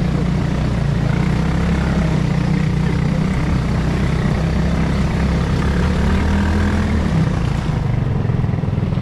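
ATV engine running steadily while riding, its low drone easing off about three-quarters of the way through.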